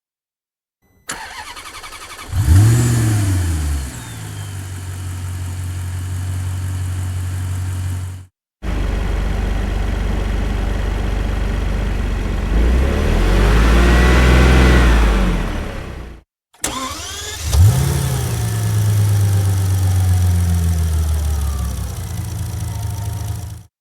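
Car engines in three separate takes. In the first and last, the starter cranks briefly, the engine catches with a rev flare, then settles into a steady idle. The middle take is an engine running that is revved up once and eased back down.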